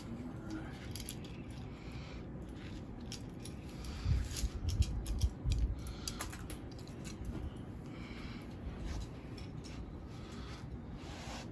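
Statue parts and packaging being handled: scattered light clicks and small rattles throughout, with a few low thumps about four to six seconds in.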